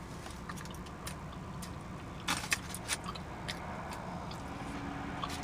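Steady low hum of a car cabin, with a quick run of sharp clicks and crinkles a little over two seconds in.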